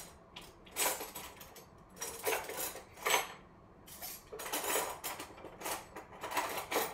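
A spoon scraping and clinking against a pan as thickened teriyaki sauce is stirred. It comes in separate strokes about once a second at first, then more continuously over the last couple of seconds.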